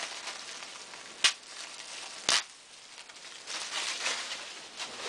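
Thin plastic garbage bag being torn off its roll and handled, crinkling and rustling. Two sharp snaps come about a second apart, and the loudest rustling is near the end.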